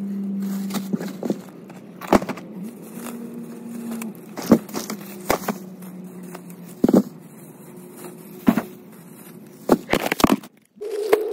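Plastic grocery bags rustling and knocking as they are set down in a car trunk, a dozen or so sharp clacks and thumps over a steady low hum. The sound cuts out briefly near the end.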